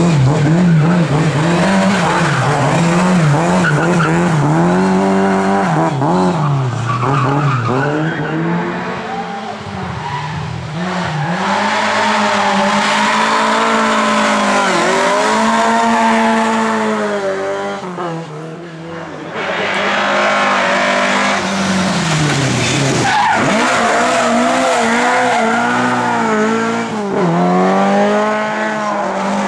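Lada race car engines revving hard through corners, pitch climbing and dropping again and again with throttle and gear changes, with tyres squealing. The engine sound dips briefly about two-thirds of the way through, then comes back up.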